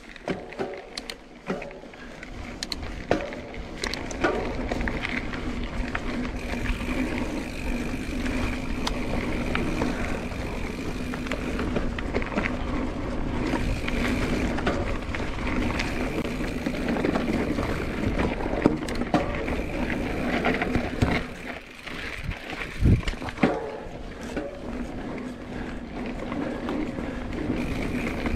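Mountain bike riding a dirt singletrack: continuous tyre and trail noise with frequent sharp knocks and rattles from the bike, and a steady buzz underneath.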